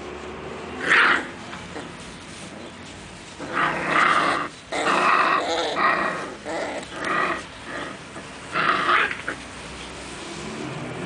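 Bull Terrier x Boxer puppies vocalising while play-fighting, in short bursts: one about a second in, a busy string of them from about three and a half to seven and a half seconds, and another near nine seconds.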